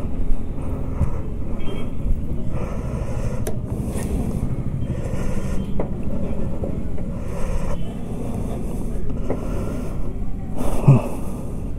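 Motor vehicle engine running steadily, with brief louder swells of road traffic, the loudest near the end.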